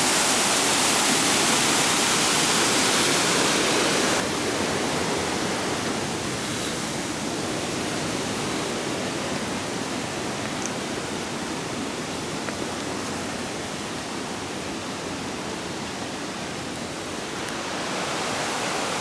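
Waterfall rushing: a steady, full rush of falling water that drops suddenly in level about four seconds in and grows louder again near the end.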